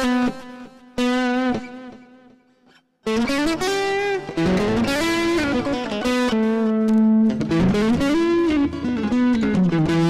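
Electric guitar played through a Zoom G1Four multi-effects pedal on its Octave patch, with the octave effect switched off: a single-note lead line with bent notes. The notes ring out and fade almost to silence about two to three seconds in, then the playing starts again.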